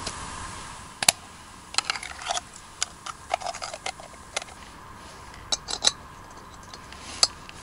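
Irregular light clicks and taps of small objects being handled, coming singly and in short clusters.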